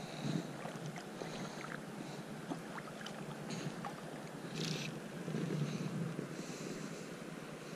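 Gentle river water and light wind around a wading angler, with faint rustles and scrapes of fly line being stripped and handled a few times.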